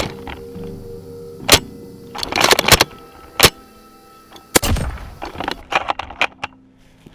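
Background music, broken by several sharp cracks of airsoft gunfire: one alone, then a quick cluster, then two more spaced apart.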